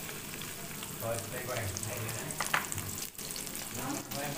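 Diced tempeh sizzling as it fries in hot oil in an aluminium wok, freshly tipped in from a bowl.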